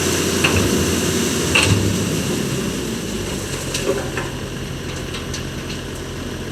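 Dump truck's diesel engine running with a steady hum under a rushing hiss, with a few sharp clanks, typical of a load of sand being tipped out.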